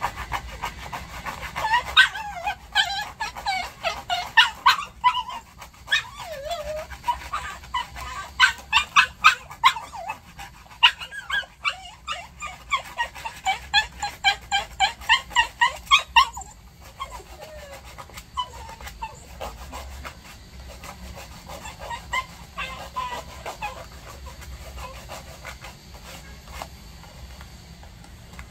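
Maltese dog whimpering and yelping in a quick run of short, high cries, about two or three a second, as its nails are filed; after about sixteen seconds the cries turn fainter and sparser.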